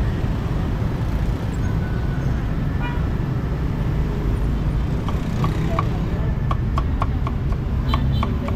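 Steady rumble of street traffic, with a brief vehicle horn toot about three seconds in. From about five seconds, a cleaver slicing cucumber on a wooden chopping block in quick, regular knocks, about three a second.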